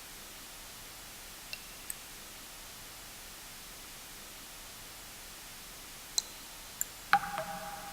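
Steady white-noise hiss with water drops plinking into water: two faint drops about a second and a half in, then three more near the end, the last the loudest and ringing on briefly.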